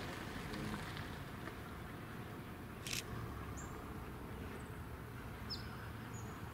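Distant R class Hudson steam locomotive R707 working hard up a grade: a low, steady rumble. A sharp click comes about three seconds in, and several short, high bird chirps follow in the second half.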